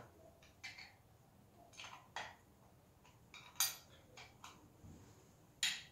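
Scattered metallic clinks and taps of hand tools working on the loader's diesel engine. The loudest comes about three and a half seconds in, with another sharp one near the end.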